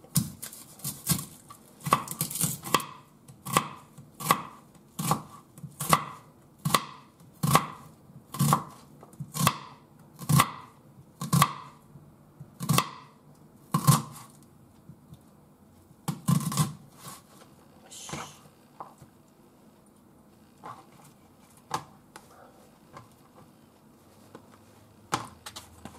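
Kitchen knife slicing an onion on a wooden cutting board: sharp, even cuts a little over once a second for about fourteen seconds, then slower, fainter cuts until near the end.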